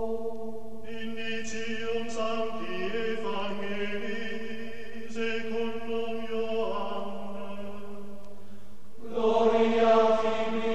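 Background music of voices chanting together in long held notes, several parts at once, moving slowly from pitch to pitch; it swells louder about nine seconds in.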